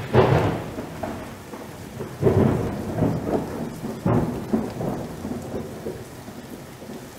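Thunder rolling over steady rain, with loud peals at the start and about two seconds in, and a sharper crack about four seconds in, easing off toward the end.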